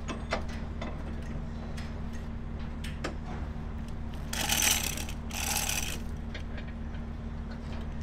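Scattered metallic clicks and chain rattle from a hand chain hoist holding a ride car, over a steady low machinery hum. Two short noisy bursts about halfway through are the loudest sounds.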